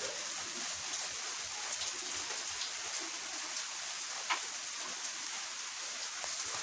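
Steady rain-like hiss. About four seconds in comes a single short metallic click from the gear shafts of a 100cc motorcycle gearbox being turned and shifted by hand in its open crankcase.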